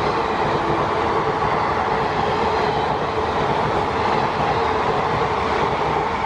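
Indian Railways express passenger coaches running past at speed: a steady rush of wheels on rail with a clickety-clack of wheels over rail joints, until the last coach goes by near the end.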